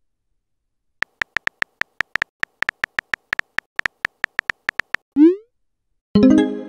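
Texting-app sound effects. About twenty quick keyboard taps, roughly five a second, sound as a message is typed. A short rising swoop follows as it is sent, and about a second later a chime sounds as the message bubble appears.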